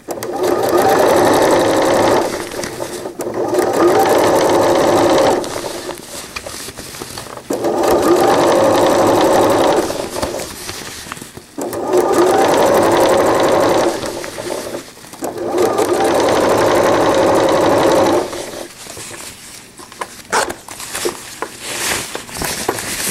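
Electric sewing machine stitching in five spurts of two to three seconds each, with short pauses between them as the PUL fabric is guided along the zipper. Near the end the machine stops, leaving softer handling noise with a few sharp clicks.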